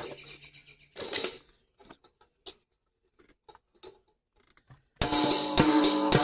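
A drum kit of only three drums: a hit rings out, another hit about a second in, then a pause broken only by a few faint clicks, before loud, fast drumming starts again about five seconds in.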